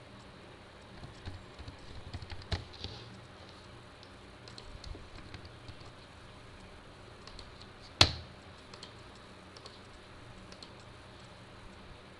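Typing on a computer keyboard in short irregular runs of key clicks, with one sharp, much louder click about eight seconds in.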